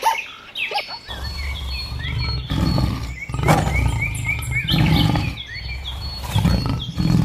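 Birds chirping in quick short calls, with several low, rough animal calls of about a second each rising and falling beneath them.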